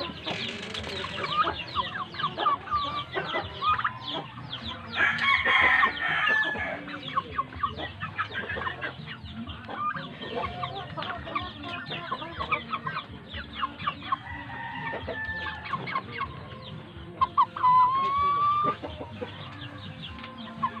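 A flock of young Japanese shamo chickens peeping and clucking continuously in many short, overlapping calls. There is a louder flurry about five seconds in and one longer, drawn-out call near the end.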